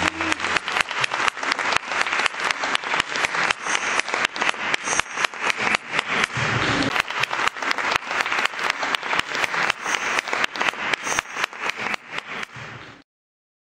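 Audience applauding with dense, steady clapping as the choir's final chord dies away at the start; the applause cuts off suddenly near the end.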